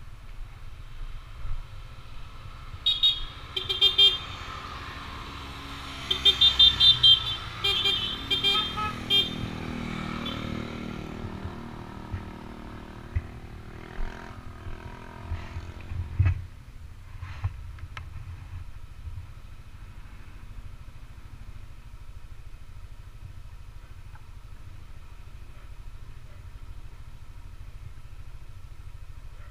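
Vehicle horn tooting in several short, loud bursts a few seconds in, over the running engine and low wind rumble of a Yamaha NMAX scooter. Around the middle come a few clicks and a thump, then a steady low rumble.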